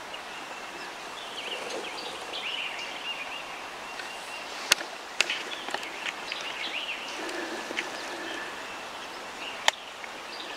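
Songbirds chirping and warbling over a steady outdoor hiss, with a few sharp clicks, two close together about five seconds in and one near the end.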